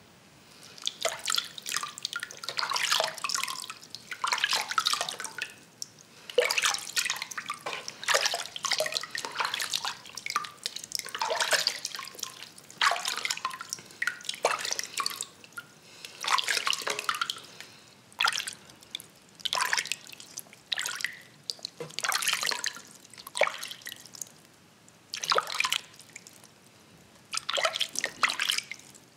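Hands being washed in a bucket of water, rubbing muddy earth off the skin: irregular splashing and dripping in bursts every second or two, with short pauses between.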